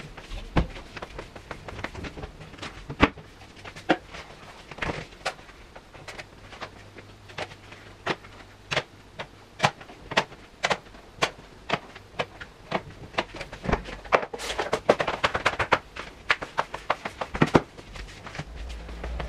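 Household handling noises: irregular clicks and knocks of footsteps on a tiled floor and of a refrigerator door and its contents being handled, with a quick run of clicks about three-quarters of the way through over a faint steady hum.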